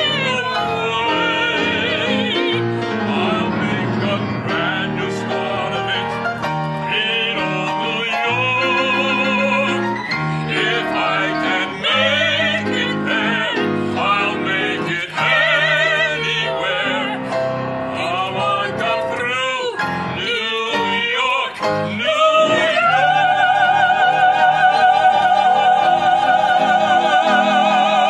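A soprano and a baritone sing an operatic duet with piano accompaniment. Near the end they rise to one long, held note with a wide vibrato.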